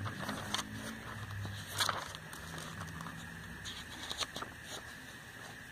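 Glossy catalogue pages being handled and turned, with a few short crisp paper rustles and taps over a low steady background hum.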